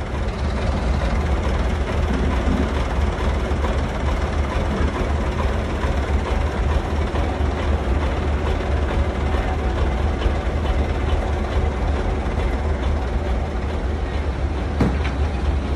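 Heavy diesel engine running steadily with a deep, continuous rumble, with a single short knock near the end.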